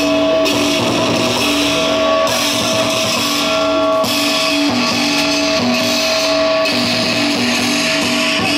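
Guitar-led music with held notes changing pitch every second or so.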